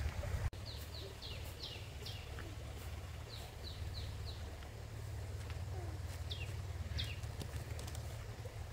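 A bird calling in short runs of three or four quick, falling high notes, the runs a few seconds apart, over a steady low rumble.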